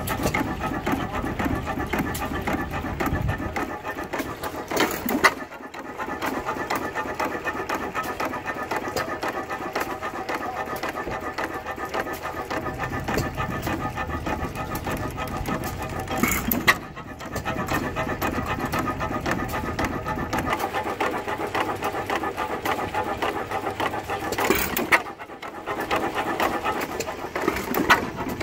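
Old hit-and-miss stationary farm engine running, a steady fast ticking and puffing with no let-up, broken briefly three times.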